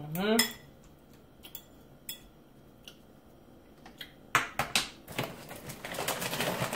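Metal spoon scraping and clinking against a ceramic bowl as guacamole is stirred, with a few sharper clinks a little past four seconds in as the utensil is set down, then a denser crackly rustle near the end.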